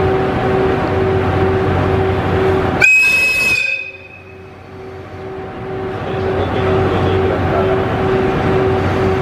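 Electric locomotive's whistle sounding one short, loud, high-pitched blast about three seconds in, the signal for the train's departure. Under it is a steady platform background with a regularly pulsing tone.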